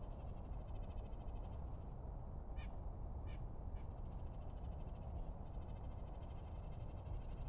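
Northern cardinals chirping: rapid runs of short repeated notes, with a few louder separate calls in the middle, over a steady low rumble.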